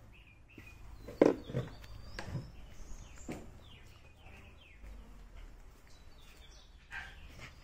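Small birds chirping, short falling notes repeated, with a few knocks from the phone being handled; the loudest is a sharp knock about a second in.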